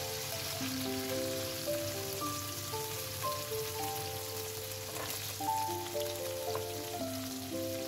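Chicken hearts, onion and chilli sizzling in oil in a frying pan, a steady hiss, under melodic background music. A couple of soft knocks in the pan about five seconds in.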